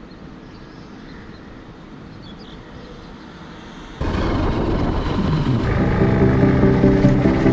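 A low steady ambience; about four seconds in, a motorcycle engine revs up suddenly and loudly, rising in pitch, and music with a steady bass line comes in under it.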